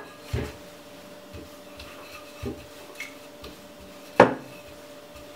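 Wooden rolling pin rolling out roti dough on a floured stone counter: soft rubbing with a few light knocks, and one sharp knock about four seconds in.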